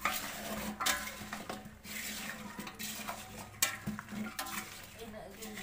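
A spoon scraping and clinking against an aluminium pot as cut jackfruit pieces are mixed in it by hand, in quick irregular knocks and scrapes.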